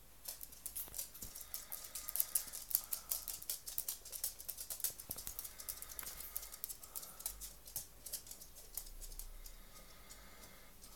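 Chihuahua's claws clicking on a hard laminate floor: rapid, irregular ticks that thin out after about seven seconds.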